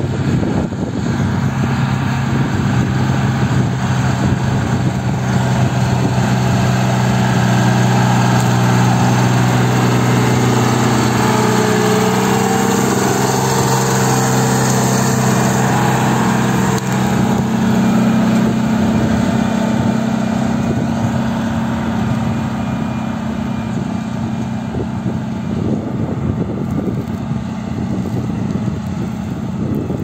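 John Deere 3140 tractor's six-cylinder diesel engine running steadily under load while pulling a three-furrow plough through the soil. It is loudest in the middle and fades somewhat in the last third as the tractor moves away.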